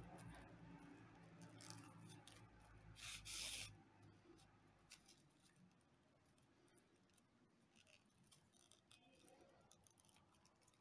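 Faint rustling of paper rope being drawn through crocheted paper-rope stitches with a sewing needle as the yarn is pulled tight. One louder rustle lasting under a second comes about three seconds in, then light scattered rustles and ticks.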